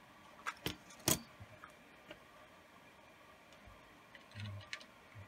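A few sharp, uneven metal clicks and taps from a steel digital caliper being handled, closed and set down on a cutting mat, then a soft low thump near the end.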